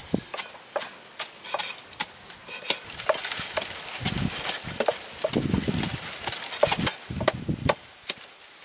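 A cleaver chopping red chilies on a wooden chopping block in quick, irregular knocks, with dull thuds from a wooden pestle pounding in a wooden mortar a few times.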